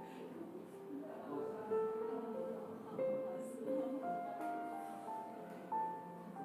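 Background music of slow, held notes, over a low murmur of voices and bookstore ambience.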